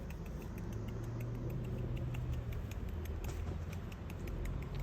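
Rapid mouth clicks, about six a second, made to call animals closer, over a low steady hum.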